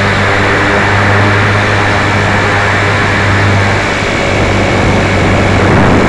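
Small radio-controlled model aircraft's motor and propeller running steadily close to the microphone, a loud constant drone with a low hum under a broad whirring hiss.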